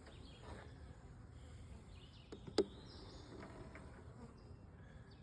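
Honeybees buzzing as a steady hum around an opened nuc hive during a frame inspection, with one sharp click about halfway through.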